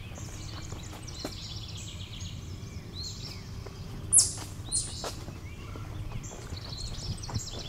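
Wild birds singing in spring woodland: rapid trilled phrases repeat, and one loud, sharp, downward-sweeping call stands out about four seconds in. Under the song there is a steady low background noise.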